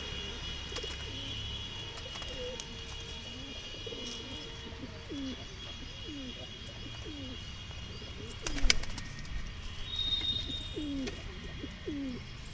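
Domestic pigeons cooing over and over in short low calls, with a single sharp knock a little past the middle.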